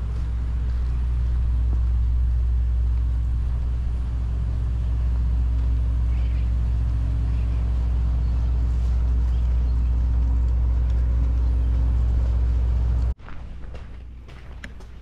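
Engine running steadily, a loud low drone that cuts off suddenly near the end.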